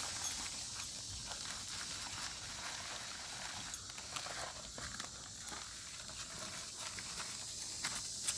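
Steady high-pitched insect drone, with scattered small clicks and scrapes.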